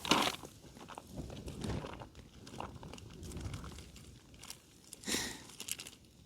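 Plastic and foil food pouches crinkling and rustling as cooked boil-in-the-bag rice is tipped out of its bag into a curry pouch, with small clicks and a louder rustle about five seconds in.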